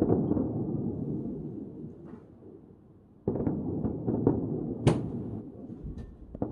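Aerial fireworks shells bursting at a distance. A deep boom comes right at the start and rumbles away over about three seconds. A second boom comes about three seconds in, followed by a string of smaller bangs and one sharp crack near the five-second mark.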